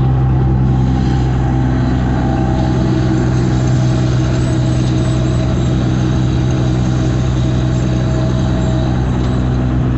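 Vehicle cab interior at highway cruising speed: the engine drones at a steady low pitch under constant road and tyre noise.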